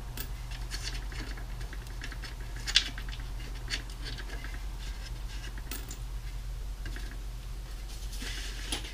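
Small scrapes and clicks of metal drum hardware being handled as lugs and their screws are taken off a Gretsch tom shell, with one sharp click about three seconds in. A steady low hum runs underneath.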